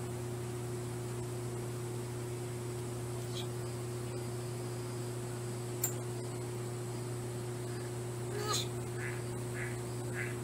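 Steady hum with hiss, and about three-quarters of the way in a short animal call followed by a string of short squeaky calls, about two a second.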